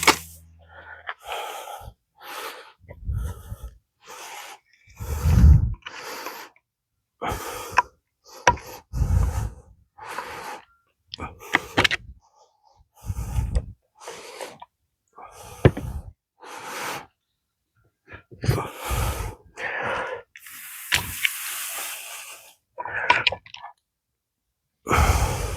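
Irregular knocks and prying on the sealant-stuck halves of an old Ford transmission case as they are worked apart, mixed with straining breaths: a string of short separate sounds about a second apart, with a longer scraping sound near the end.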